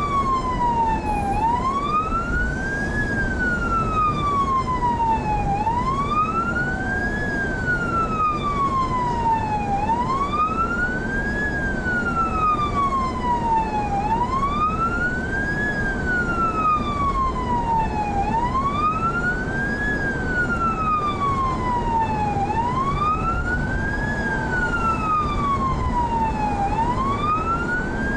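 Police car siren wailing in a slow, even rise-and-fall, about seven cycles, each rising quickly and falling more slowly. Heard from inside a moving car, with steady road and engine noise underneath.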